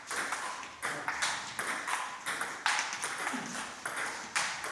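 Table tennis rally: the ball clicking sharply off the rubber-faced paddles and bouncing on the tabletop, about two clicks a second.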